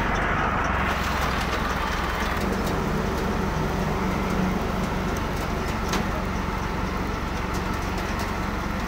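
Tractor-powered threshing machine running steadily: a low engine drone under the whir of the thresher's belt-driven pulleys and drum, with a few scattered light clicks.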